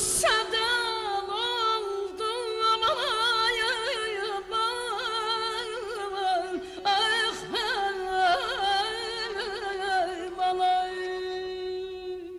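Female voice singing Azerbaijani mugham in the Segah mode, sliding through rapid wavering ornaments over a steady held accompanying note. She holds a long, even note near the end, then stops.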